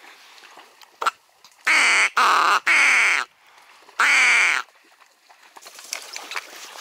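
Four loud, raspy duck quacks: three in quick succession about two seconds in, then a fourth a second later, with a short click just before them.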